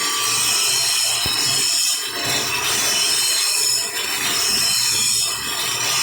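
Welding arc crackling and hissing steadily.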